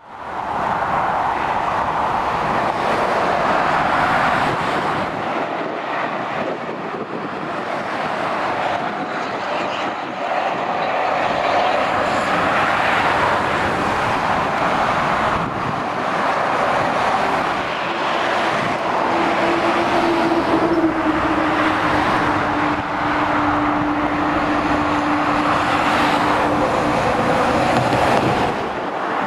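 Motorway traffic: heavy lorries and cars passing at speed, a continuous rush of tyre and engine noise. A steady low drone holds for several seconds in the second half.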